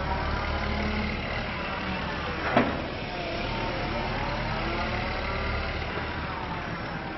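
Komatsu PC130-8 hydraulic excavator's diesel engine and hydraulics running under load as the machine swings and works its boom, the pitch rising and falling. A single sharp knock about two and a half seconds in.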